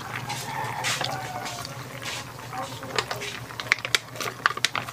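Wok of crabs and seafood simmering on the stove, a soft bubbling over a low steady hum. Light sharp clicks and crinkles come in the last second or so as powdered coconut milk is shaken from a plastic sachet into the pot.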